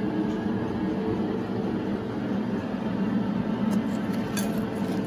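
A steady low mechanical hum, like a motor running, with an even noise over it.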